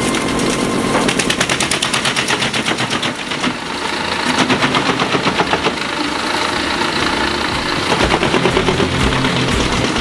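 Pezzolato PTH 1200/1000 drum wood chipper chewing whole logs: the knives on the spinning drum bite the wood in a rapid, rattling train of cracks, several a second. Underneath runs the PTO-driving tractor engine, working under load.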